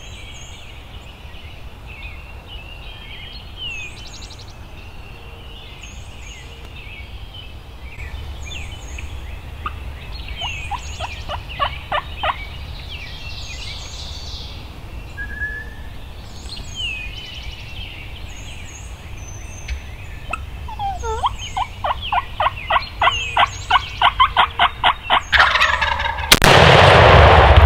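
A wild tom turkey gobbling among high songbird chirps; near the end a long rapid series of calls grows louder. About a second before the end a single very loud blast from a Remington 870 12-gauge shotgun cuts through everything.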